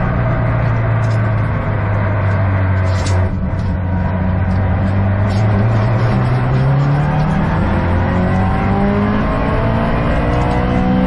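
Subaru WRX STI's turbocharged EJ20 flat-four engine under hard track driving, heard from inside the cabin. The engine note holds steady with a brief hiss about three seconds in, then the revs climb steadily through the second half.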